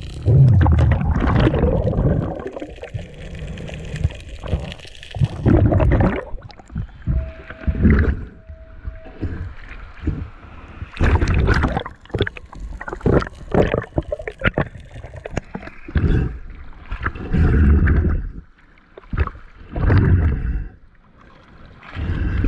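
Sea water sloshing and splashing around a camera held at the water surface, in irregular surges every second or two.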